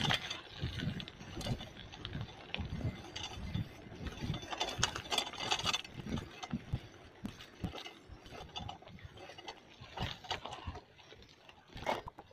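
A bicycle being ridden over rough ground: irregular rattling, clicks and knocks from the bike, with rubbing noise on the microphone.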